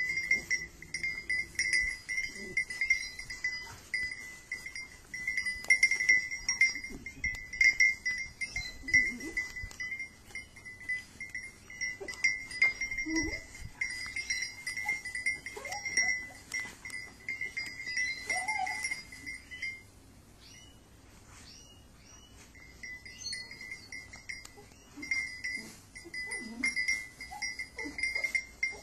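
Dry straw rustling and crackling as a beagle digs and rolls in it, under a steady, pulsing high ringing tone that stops for a few seconds about twenty seconds in.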